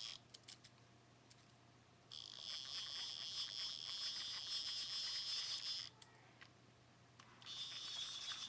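A small toy spincast reel on a short kids' rod-and-reel combo being cranked in two spells, about four seconds and then about two, giving a fast ticking whir from its gears.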